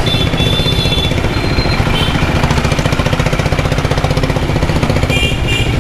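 Royal Enfield Himalayan's 411 cc single-cylinder engine running at low speed, a fast, even thudding of exhaust pulses, heard from the rider's seat.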